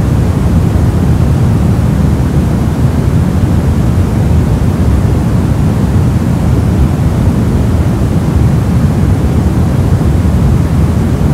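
Continuous soft static noise, even and unchanging, weighted to the low end, so it sounds like a deep, steady rush rather than a bright hiss.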